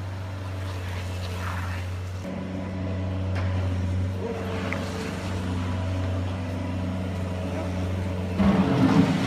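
Electric drive of a radio-controlled toy construction vehicle running with a steady low hum, shifting pitch about two seconds in and getting louder and rising near the end as it works harder.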